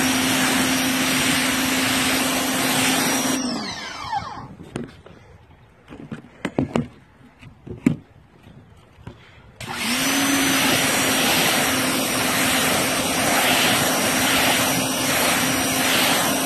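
Pressure washer running with its spray hitting plastic speakers on a four-wheeler rack: a loud steady hiss with a low hum and a high whine. It cuts out about three and a half seconds in, winding down in pitch, leaving a few sharp knocks, then starts up again about ten seconds in and runs until the end.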